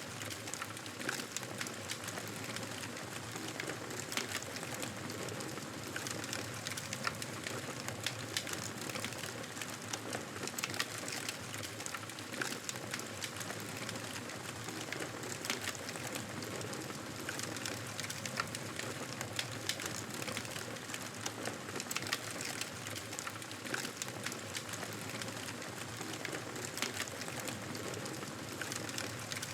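Campfire burning: a steady hiss of flames with frequent irregular crackles and pops of burning wood.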